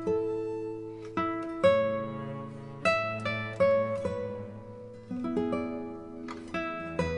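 Background music: an acoustic guitar plucking notes and chords, each note ringing and fading.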